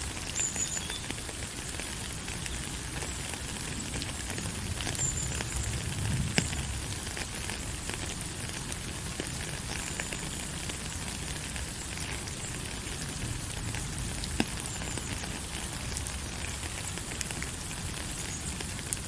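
Steady rain falling, an even hiss with scattered louder drops ticking on a surface. A few short, faint high peeps come and go.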